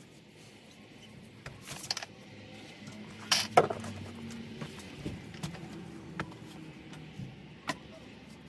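Scattered clinks, knocks and scrapes of a plastic bucket and tools being handled on a dirt crawl-space floor, with one louder knock a little over three seconds in.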